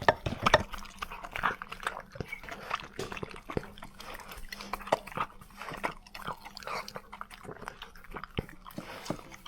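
Dogs eating from their bowls: irregular chewing, lapping and small clicks against the bowls.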